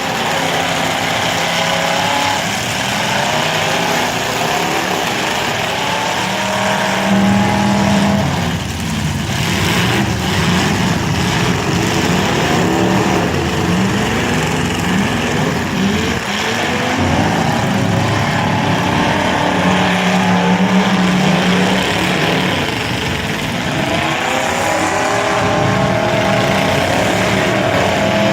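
Several demolition derby car engines running and revving hard, their pitch rising and falling again and again, with a steady drone underneath.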